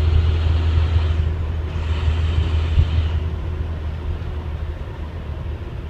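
School bus diesel engine and road rumble heard from inside the cab while driving, a deep steady drone that gradually grows quieter. A single short knock comes about three seconds in.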